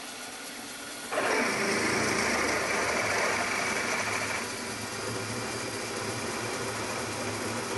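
Milling machine running with a twist drill cutting a blind tapping-size hole in a metal tool-holder block. The cutting noise comes in about a second in and eases off about halfway through, leaving the steady hum of the machine.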